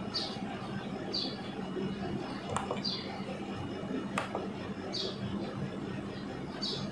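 A small bird chirping: about five short high chirps, one to two seconds apart, over a low steady hum. Two sharp clicks come in the middle.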